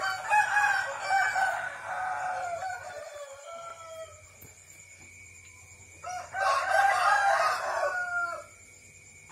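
Rooster crowing twice: a long crow at the start that trails off, then a second crow about six seconds in. A steady high-pitched whine runs underneath.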